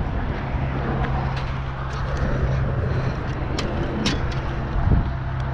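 Steady low hum of road traffic, with a few sharp clicks about one and a half, three and a half, and four seconds in.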